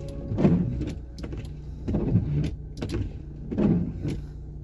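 Fiat Doblo windshield wipers sweeping across the wet windshield, three strokes about a second and a half apart, heard from inside the cabin over a steady low hum.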